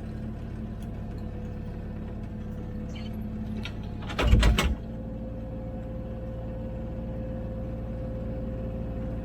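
Komatsu PC16 mini excavator's diesel engine running steadily. A loud clattering knock of about half a second comes a little over four seconds in.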